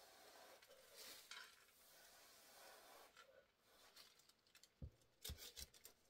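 Faint puffs of breath blown across wet poured acrylic paint to open a bloom, followed by a few soft knocks about five seconds in.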